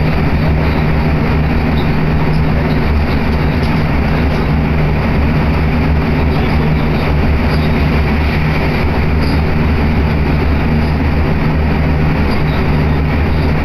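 Inside the passenger car of an electric commuter train running along the line: a steady low hum and rumble at an even level.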